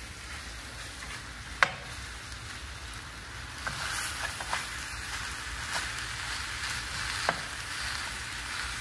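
Sliced apples with sugar and butter sizzling in a stainless steel skillet over a gas flame while a metal spoon stirs them, clinking against the pan. The sharpest clink comes about one and a half seconds in and another near the end; the sizzling grows louder about four seconds in.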